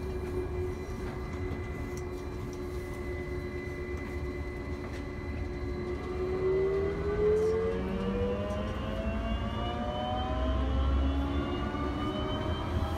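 Airport people-mover shuttle train, heard from inside the car: its electric drive hums steadily, then about six seconds in whines in several rising tones as the train pulls away and speeds up, over a low rolling rumble.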